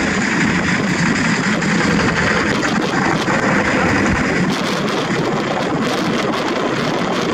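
Several walking tractors' single-cylinder Kubota diesel engines running together in a dense, steady clatter, with a burst of sharp ticks from about halfway through.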